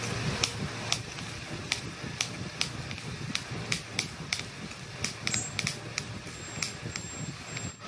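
Kitchen knife slicing a green chilli on a wooden chopping board: sharp taps of the blade striking the board, about two a second and somewhat uneven, over a steady low background noise.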